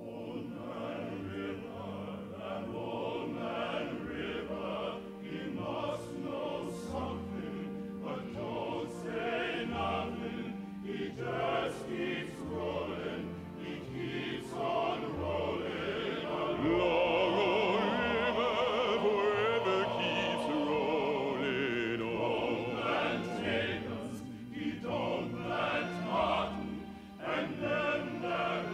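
Men's voices singing a slow show tune in a full operatic style over a pit orchestra, with steady low bass notes underneath. The singing swells louder a little past the midpoint, with wide vibrato.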